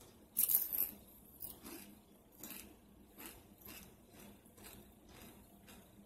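Close-up crunching of crispy kettle corn chips being eaten: one loud bite about half a second in, then chewing at about two crunches a second, growing fainter.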